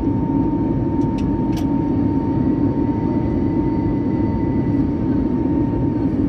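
Airbus A320neo's CFM LEAP-1A turbofan and the airflow past the fuselage, heard inside the cabin during the climb after takeoff: a steady, even roar with a steady high tone running through it. A few faint clicks sound about a second in.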